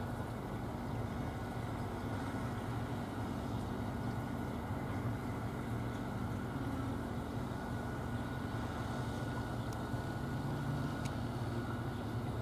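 Steady low rumble of distant traffic, even throughout, with no train passing.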